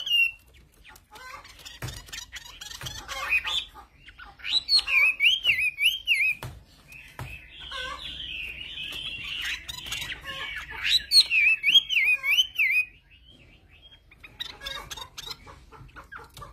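Caged Chinese hwamei (hoạ mi) singing: loud, varied whistled phrases that rise and fall quickly, in bursts of a few seconds broken by short pauses, with scattered light ticks.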